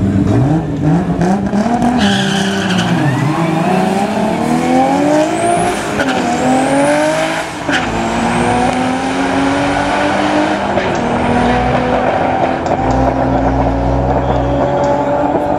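Cadillac CTS and a second car launching side by side on a drag strip at full throttle. Engine pitch climbs and drops back at each upshift, several times in the first half, then holds a steadier note as they run down the quarter mile.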